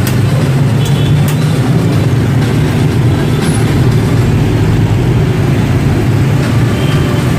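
Steady din of heavy street traffic: motorbike engines and a city bus running close by.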